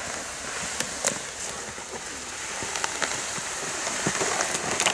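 Steady rustling and crackling of brush, grass and dry leaves as a heavy dead wild boar is dragged through the undergrowth on a rope, with many small snaps and clicks throughout.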